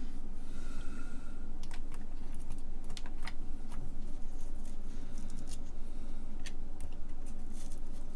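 Scattered light clicks and ticks of small plastic 2102 RAM chips being handled and picked out of black anti-static foam, irregular and close, over a steady low hum.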